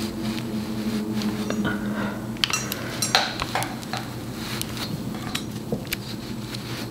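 An electric hot comb being handled and drawn back through a wig's hair: scattered light clicks and scrapes, the loudest about three seconds in, over a steady low hum.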